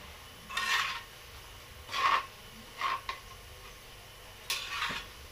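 Metal slotted spatula scraping and stirring around an aluminium wok of frying fish balls, four short scrapes a second or so apart.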